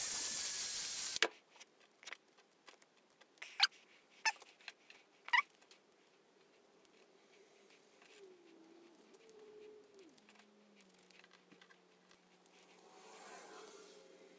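Electric drill running, cutting off abruptly about a second in. It is followed by three sharp, ringing metallic clinks of small metal parts being handled.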